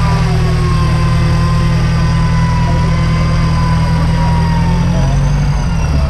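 Engine of an off-road vehicle running steadily at low revs, its pitch shifting about five seconds in.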